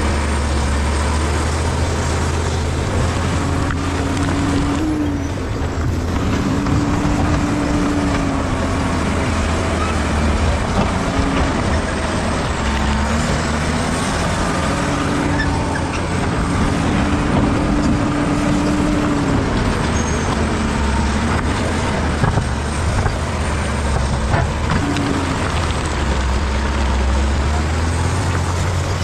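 Bulldozer's diesel engine running steadily and loudly at work, its note shifting up and down in stretches.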